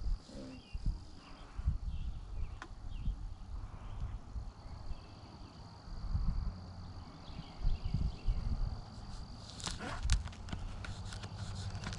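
A steady high-pitched insect trill that breaks off about a second in and starts again about four and a half seconds in, over irregular low thumps and rumble. A short sharp rising sound comes about ten seconds in.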